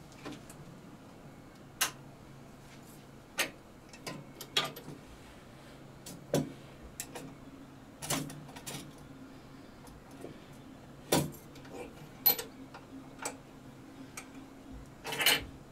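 Watch cleaning machine being handled: irregular sharp clicks and knocks as its numbered dial is turned and the basket head is lifted and moved between the glass jars, the loudest knock near the end, over a faint steady low hum.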